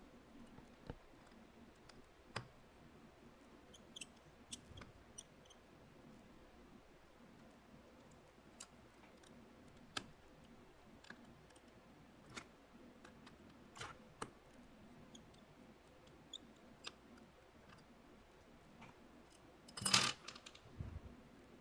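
Faint, scattered clicks and ticks of a precision tri-point (Y000) screwdriver and tiny screws being worked out of an iPhone 11's battery bracket, with a louder clatter near the end.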